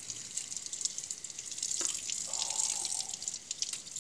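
Kitchen faucet running into a sink, the stream splashing over hands and a knife being rinsed. One small knock a little before halfway.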